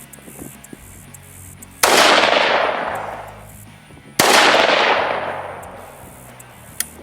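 New England Firearms Handi-Rifle in .243 Winchester fired twice, about two and a half seconds apart, each loud report echoing away over a second and more.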